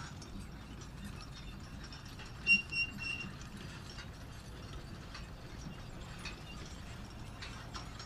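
Manure spreader running: a steady low rumble with its mechanism clicking and rattling irregularly. About two and a half seconds in, three short high-pitched squeaks stand out above it.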